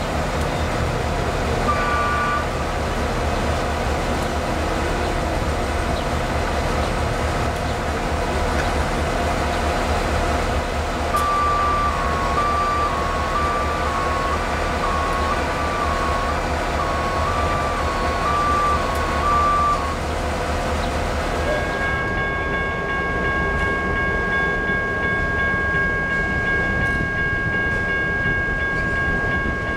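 A heavy truck-mounted crane's diesel engine runs steadily while it lifts a derailed centerbeam flatcar, with an alternating two-tone beeping alarm for several seconds midway. About three quarters of the way in the sound changes to a moving diesel train of locomotives and centerbeam flatcars, with a steady high chord of tones held to the end.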